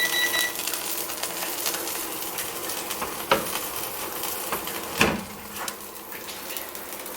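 Hot steak grease sizzling and popping in an air fryer pan, with two sharp metal clinks of pan or utensil about three and five seconds in.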